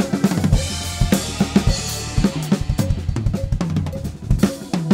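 Acoustic drum kit played in a steady groove of kick, snare and hi-hat over a song's backing track, with a cymbal crash washing out about a second in.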